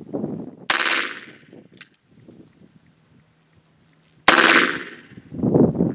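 Smith & Wesson Model 629 revolver firing two .44 Special rounds about three and a half seconds apart, each a sharp, loud report with a ringing tail.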